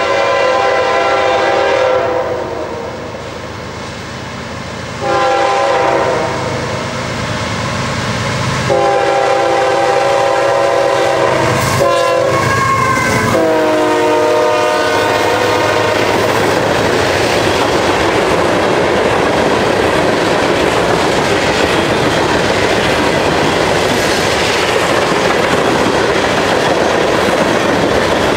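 A diesel freight locomotive's air horn sounds a series of blasts, long ones and a short one, as it approaches. The pitch of the last blast drops as the locomotive passes, about halfway through. The steady rumble and clickety-clack of freight cars rolling past on jointed track then takes over.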